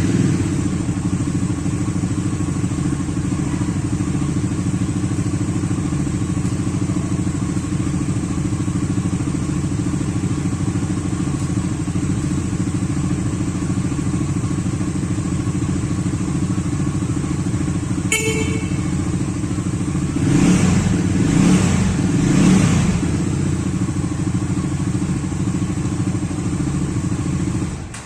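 Bajaj Dominar motorcycle's 349cc engine idling steadily through its exhaust, with three short throttle blips a little after two-thirds of the way through. The engine is then switched off and cuts out suddenly near the end.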